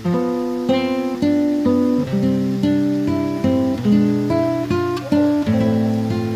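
Background music on acoustic guitar: single notes plucked one after another at an easy pace, each ringing and dying away.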